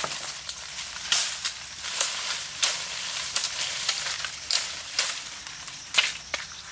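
Dry leaf litter and brush rustling and crackling as a person pushes through forest undergrowth and handles branches, in irregular bursts a few times a second with small twig snaps.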